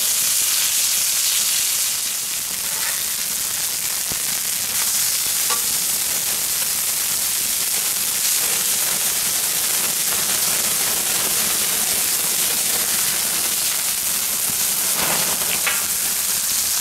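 Wagyu beef burger patties and bacon sizzling steadily on a hot steel fire plate over a wood fire, their juices running onto the plate, with a few faint clicks.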